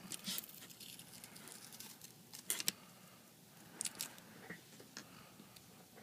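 Razor blade scraping old adhesive off an iPad 3's frame in short, irregular scratchy strokes.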